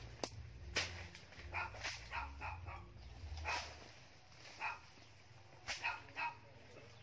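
Short, sharp animal calls, about a dozen in uneven groups of one to three.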